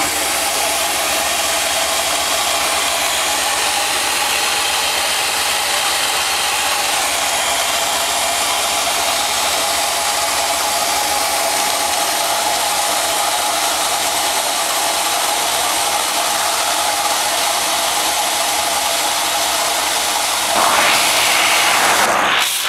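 Pressure washer running steadily, its wand jetting into water in a plastic drum to agitate it while a powdered footbath product is mixed in. The sound gets louder and harsher near the end.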